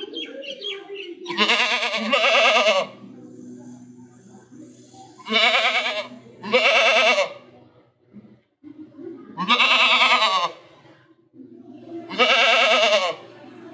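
A goat bleating: about five loud, quavering bleats, a second or so apart, each lasting up to about a second and a half.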